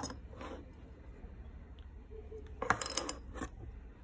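Metal parts of an Angénieux Retrofocus lens clicking and clinking as it is taken apart by hand: a click at the start, a short scrape, then a cluster of sharp metallic clinks and scraping about three quarters of the way through.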